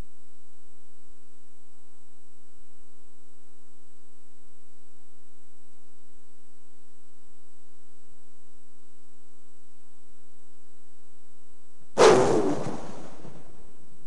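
Steady electrical hum from the church sound system, a buzz of a few fixed tones at odd multiples of the 50 Hz mains frequency. About twelve seconds in, one loud wordless shout falls in pitch and dies away within about a second and a half.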